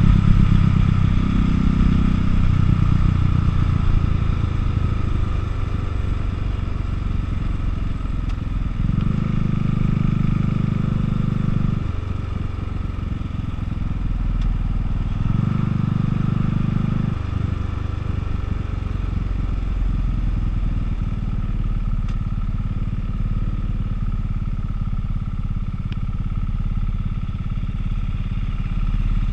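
Buell motorcycle engine running on the road, heard from the rider's seat. Its note grows stronger twice for a few seconds, about nine and fifteen seconds in.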